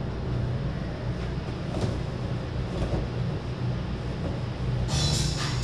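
Steady low hum of room background with a few faint knocks, and a short spell of clatter near the end.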